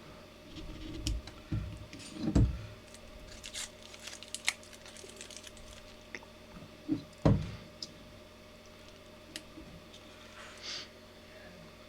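Light clicks and ticks of plastic pump parts being handled and fitted together, with a few dull knocks; the two loudest come about two seconds in and about seven seconds in.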